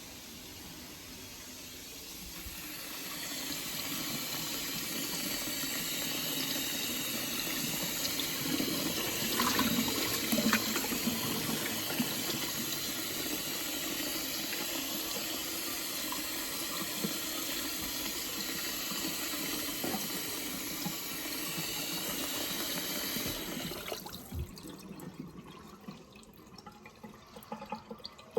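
Water running from a kitchen tap into a sink, turned on about three seconds in and shut off near the end, with a few knocks partway through.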